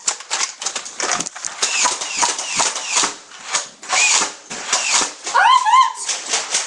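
Rapid, irregular clicking and clacking of Nerf blasters being fired, with darts striking. A short high-pitched cry rises and holds near the end.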